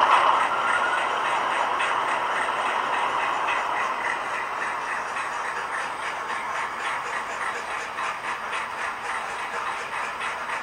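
Model locomotive running on a rolling road: a steady train-like running sound with faint rapid ticking, loudest at the start and easing off over the first two seconds.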